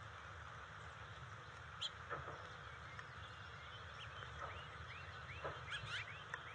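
Faint outdoor ambience with a steady low hum, over which short high bird chirps and whistles come and go, a couple of sharper calls about two seconds in and a quick cluster near the end.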